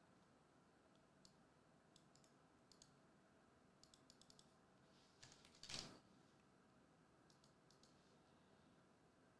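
Faint, scattered clicks of computer keyboard keys, in small clusters, with one brief louder rustle a little past halfway.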